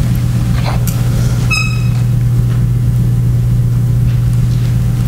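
Steady, loud low hum, with a short high-pitched beep about a second and a half in.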